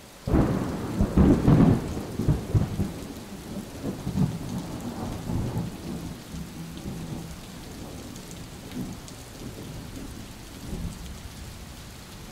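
Thunderstorm: a loud crack of thunder breaks about a third of a second in and rumbles on, fading over the next several seconds, over steady falling rain.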